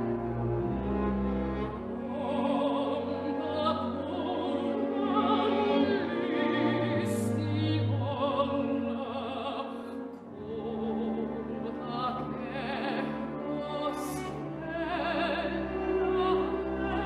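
Classical music: an operatic voice singing with vibrato over an orchestra with bowed strings.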